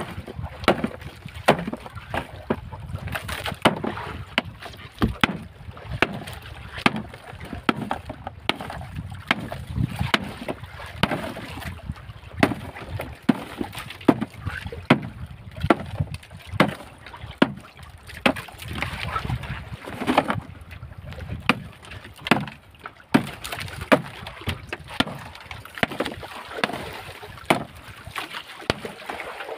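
Block ice being broken up in a plastic bucket with repeated downward blows of a handheld tool, sharp knocks and crunches about once a second, over the steady low rumble and wash of a boat at sea.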